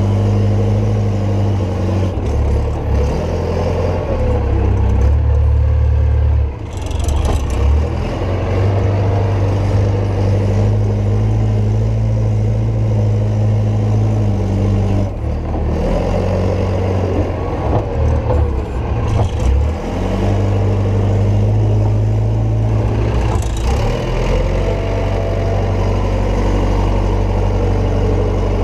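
JCB 520-50 telehandler's diesel engine working under load while pushing up grain in a pit. The engine speed rises and falls, with several short dips in level about a quarter, half, two-thirds and four-fifths of the way through, and a brief rising whine a couple of times.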